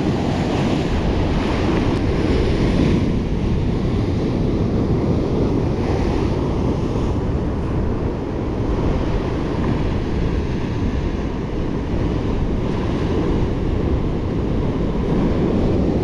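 Sea surf surging and breaking against a rock shelf, with strong wind rumbling on the microphone. The wash swells loudest near the start and again about six seconds in.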